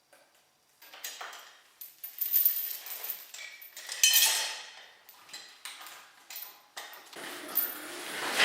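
Small metal parts clinking and rattling as they are handled, in irregular bursts with a louder clatter about four seconds in.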